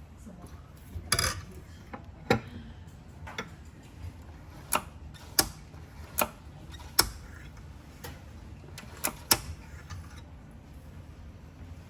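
A series of about ten sharp clicks and taps of hard parts at an espresso machine, irregularly spaced less than a second apart, over a low steady hum.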